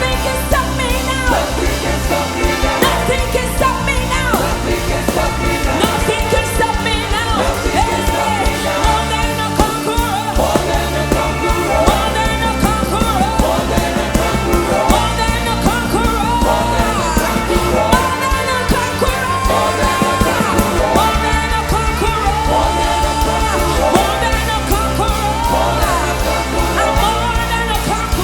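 A song with a lead voice singing over a band with steady bass and a regular beat.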